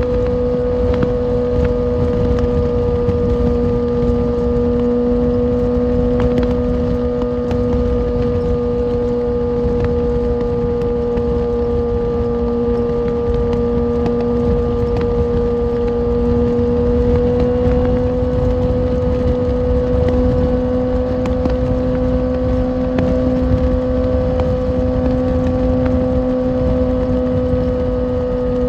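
Kawasaki Ninja ZX-6R's inline-four engine holding a steady, nearly unchanging note at highway cruising speed, with rushing wind noise underneath.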